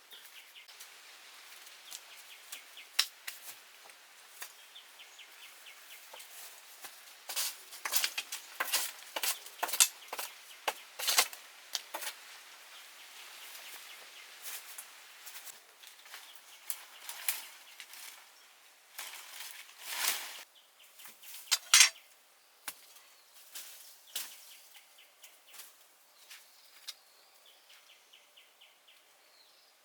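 Irregular sharp clicks, taps and knocks of camp gear being handled, coming in two bunches, about a quarter of the way in and again about two-thirds in. A faint rapid ticking trill runs underneath.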